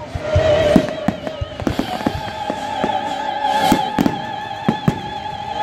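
About a dozen firework bangs and crackles at irregular intervals, over live orchestral music. A high operatic voice holds long notes with vibrato through the music.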